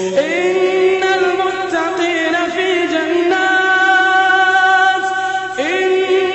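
A man's voice reciting the Quran in melodic tajweed chant, holding long notes, with rising slides of pitch into a new phrase just after the start and again near the end.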